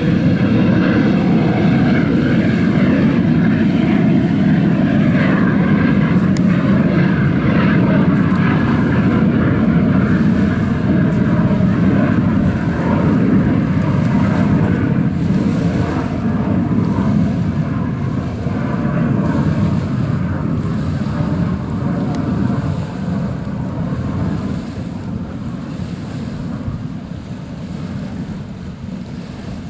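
Jet engine of a marathon jetboat running at speed on the water, a loud steady mechanical noise that slowly fades over the second half as the boat draws away.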